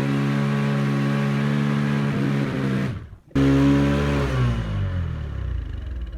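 Motorcycle engine running at steady raised revs. After an abrupt break about three seconds in, it comes back loud and the revs fall away and settle.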